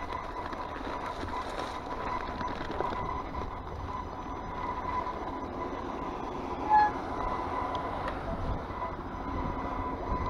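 Mountain bike ridden over a rough, frosty dirt trail: continuous rattle and rumble from the tyres and frame, with a steady high-pitched whine underneath. A short squeak about two-thirds of the way through is the loudest moment.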